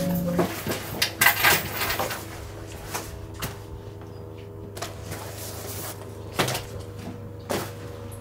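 Scattered knocks and clatters of small objects being handled and set down close by, over a steady low hum; a tune cuts off just after the start.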